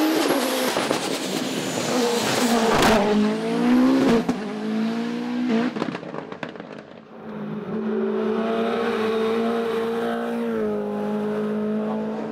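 Hillclimb race car engines at full throttle. The revs climb and drop sharply at gear changes three times, with a sharp crack about three seconds in. After a brief lull about seven seconds in, an engine holds a steady high note.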